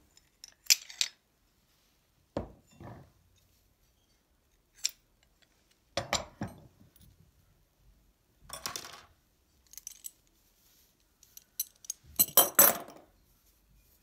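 Metal weight hooks of a circular sock machine clinking and rattling in several separate bursts as they are unhooked from the finished sock and set down; loudest about a second in and near the end.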